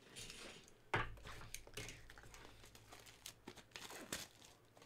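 Trading cards and a card-pack wrapper being handled, with crinkling, rustling and small clicks, and one sharp knock about a second in.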